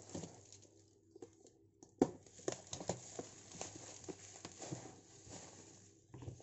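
Bubble wrap crinkling and rustling as it is pulled off a cardboard box, in irregular sharp crackles that are busiest from about two to five seconds in.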